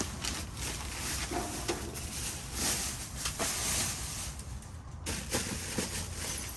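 Irregular rustling and crinkling of trash bags and their contents as they are poked and pulled about in a dumpster with a reach-grabber, with a few small knocks.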